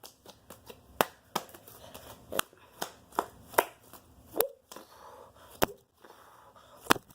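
Slime being squeezed and worked by hand, giving a series of sharp, irregular clicks and pops.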